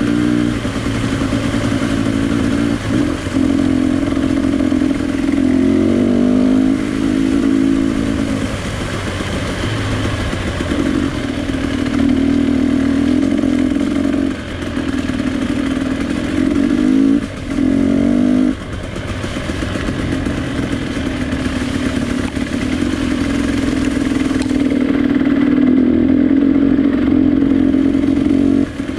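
A vehicle's engine running hard under load while being driven. Its pitch climbs and then drops sharply several times as the throttle is lifted and gears change.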